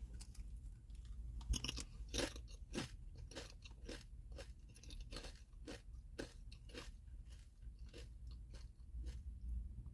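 Close-up crunching of a potato chip being chewed, many short crisp crunches at an irregular pace.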